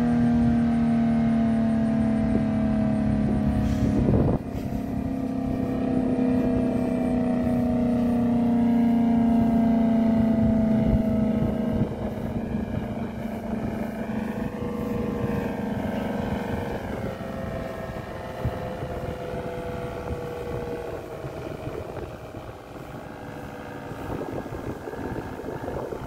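ASC P-10 electromechanical warning siren winding down at the end of its one-minute alert test: its tones slide slowly down in pitch and fade over about twenty seconds, the lowest dying out about halfway through. A steady rumble of background noise runs underneath, with a brief knock about four seconds in.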